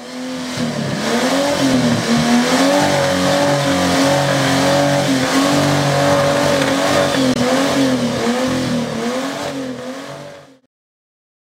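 Off-road 4x4 engine running hard under load, its pitch rising and falling as the revs vary. It cuts off abruptly near the end.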